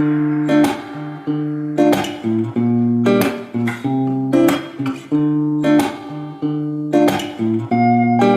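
Background music: plucked guitar notes and chords, with a new note or chord about every second.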